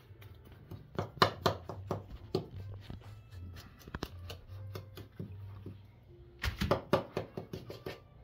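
Quick runs of sharp clicks and taps from a utensil knocking against a plastic mixing bowl as eggs are stirred into flour. One run comes about a second in and a faster one near the end.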